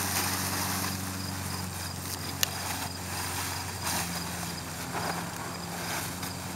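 A cloth horse blanket rustling and swishing as it is rubbed against a horse's legs and body, over a steady low hum and a faint, evenly pulsing high chirp. One sharp click comes about two and a half seconds in.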